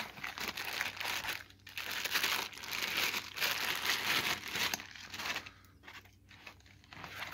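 Clear plastic bag crinkling and rustling as it is pulled off a rifle scope. The crinkling is busy for about five seconds, then dies down to a few soft ticks.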